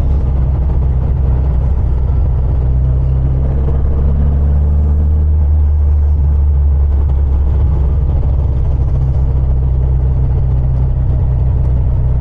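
1974 VW Super Beetle's rebuilt 1915cc air-cooled flat-four engine running steadily under way, heard from inside the cabin as a loud, even drone.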